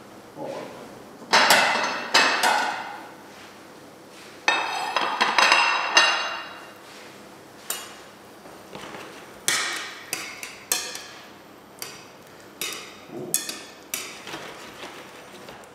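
Kitchenware clattering and clinking while a dish is plated: irregular sharp knocks of plates, pan and utensils. One strike about four and a half seconds in rings for nearly two seconds, and lighter clinks follow through the second half.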